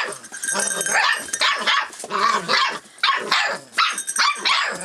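Rough collie puppies, about six weeks old, barking and yipping in quick, high-pitched bursts, several a second.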